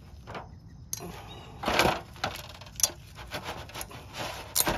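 Metal clicks and scrapes as old brake pad clips are pried off a caliper bracket, with a longer scrape about two seconds in.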